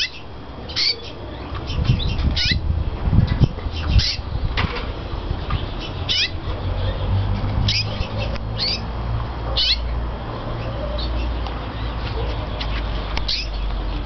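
Japan Hoso canary calling: a string of short chirps that fall in pitch, one every second or two, over a steady low rumble.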